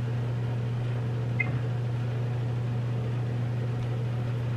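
A steady low hum with room noise, unchanging throughout, and a faint short chirp about a second and a half in.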